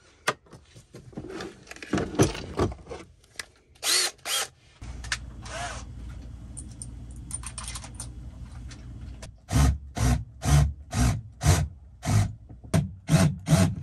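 Cordless drill run in short bursts, about two a second, near the end, after clattering as its plastic case is opened and the drill is handled. The owner puts the noise the drill was making down to its being on the wrong setting.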